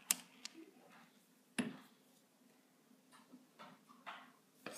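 Metal clicks from an 1871 BSA rifle's side-hinged breechblock being handled and swung open: a few light clicks, one sharper click about a second and a half in, and several faint clicks near the end.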